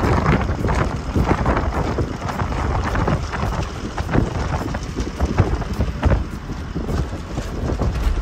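Wind buffeting the microphone from the cab of a moving truck, in irregular gusts over a steady low rumble of road and engine noise.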